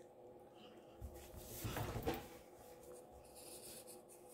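Faint handling sounds of a black felt-tip marker and a folded paper towel: a soft rustle lasting about a second, starting a second in, with a light click at its start and another at its end, over a low steady hum.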